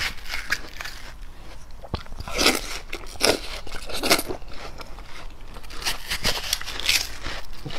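Close-miked eating of ripe watermelon: a metal spoon scraping and scooping into the red flesh, then wet, crisp bites and chewing in a series of separate crunches.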